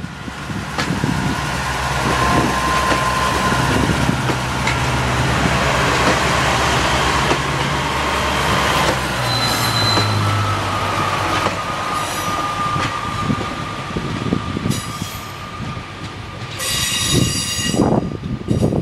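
Two coupled Class 142 Pacer diesel multiple units pulling away from a station under power, their underfloor Cummins diesel engines running hard with a low drone that is strongest for the first half and weakens as the train draws away. A brief high squeal comes near the end.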